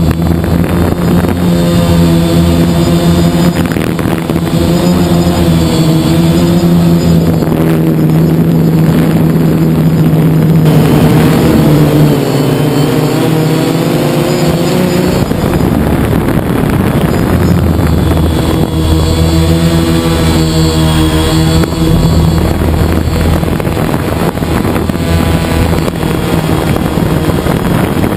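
DJI drone's electric motors and propellers buzzing, picked up by the camera on board, the pitch wavering up and down as it manoeuvres.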